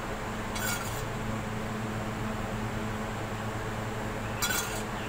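Two short clinks of kitchenware, a dish or utensil knocking, one about a second in and one near the end, over a steady low hum.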